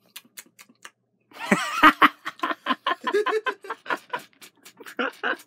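A man laughing: a few faint clicks, then about a second and a half in he starts laughing, going on in a quick run of short laughs until near the end.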